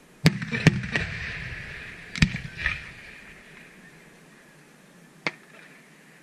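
Aerial firework shells bursting: three sharp bangs in the first second, two more a little after two seconds in, and a single bang about five seconds in, each trailing off in an echoing rumble.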